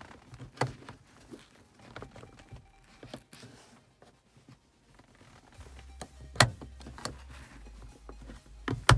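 Plastic clicks and knocks from handling the 2016 Subaru WRX STI's overhead map-light console and its lens cover as it is fitted back in place, with two sharp clicks, one about six and a half seconds in and one at the very end. A low rumble joins from about halfway.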